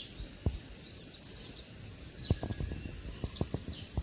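Small birds chirping over and over in short, quick, falling notes, with scattered soft knocks in the second half and a sharp click at the very end.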